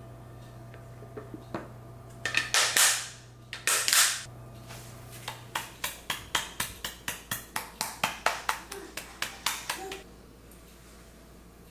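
Powdered-sugar sifter tapped over a cake to dust it: a quick, even run of light sharp ticks, about five a second, lasting some four seconds. Before it come two short, louder rustling noises.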